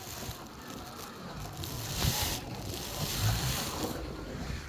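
Scalextric slot car running on the plastic track, its small electric motor and tyres making a rushing whirr that swells twice as the car passes close, about two and three seconds in.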